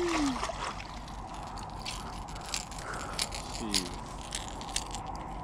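Baitcasting reel being cranked to bring in a hooked fish, its gears running with irregular sharp clicks.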